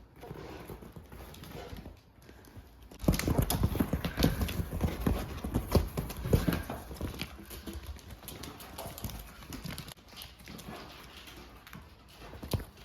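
Ferrets at play doing the war dance: a rapid patter of clucking dooks and scampering thumps that starts suddenly about three seconds in, is loudest for the next few seconds, then thins out.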